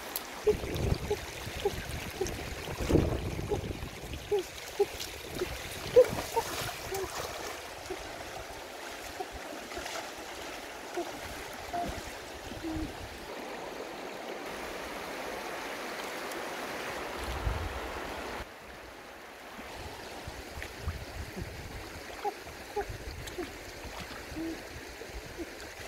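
Shallow stream water splashing and sloshing as a person wades through it and gropes along the bank with his hands. Sharp splashes come thickest in the first several seconds, then a softer, steadier wash.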